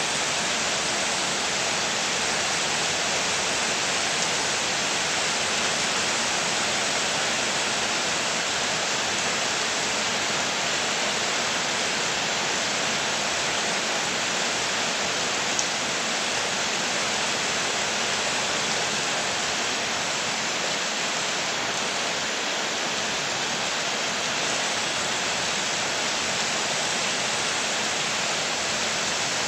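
Heavy rain pouring steadily onto a flooded street and the roofs around it, a dense even hiss.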